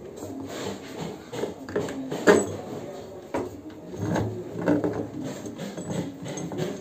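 Irregular knocks and clatter of steel bolts and rods being worked through the bolt holes of PVC pipe flanges around a butterfly valve, with one sharper knock a little over two seconds in.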